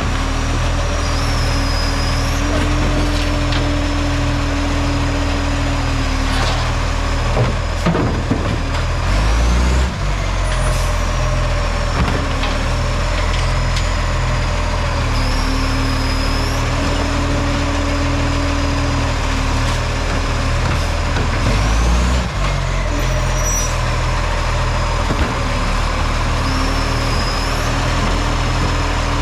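Garbage truck's diesel engine running with a leaking exhaust, giving a steady low pulsing. A higher steady tone comes and goes about every twelve seconds, and there are brief louder noises about a third of the way in and again past the two-thirds mark.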